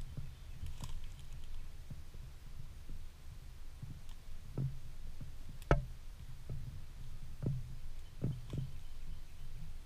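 Footsteps through grass, coming as irregular dull thuds over a low rumble on the camera's microphone, with one sharper knock about halfway.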